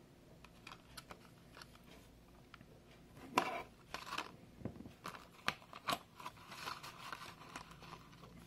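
Clear plastic blister packaging crinkling and clicking as a plastic fidget spinner is handled and pressed back into its tray: an irregular run of sharp clicks and rustles, loudest about three and a half seconds in.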